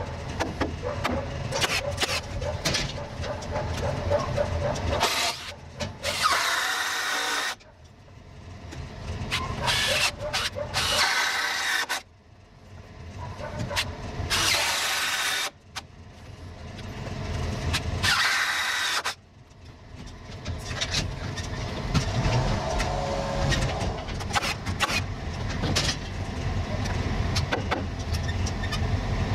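Cordless power drill running in several short bursts, each about two seconds long and stopping suddenly, over a steady low rumble of machinery.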